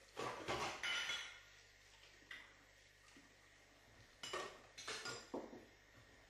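Clinking and clattering of hard objects, like dishes and utensils, in three short spells: about a second of clatter at the start, a single clink a little after two seconds, and a cluster of clinks between about four and five and a half seconds.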